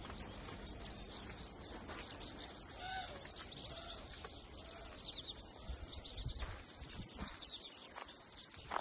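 Many small birds chirping rapidly and continuously, with a few lower, arched calls about three to four seconds in.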